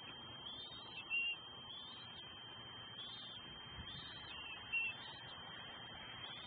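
Bald eaglets peeping, two short high chirps about a second in and near the five-second mark, as they beg for food. A steady high whine with a faint repeating pattern lies under them.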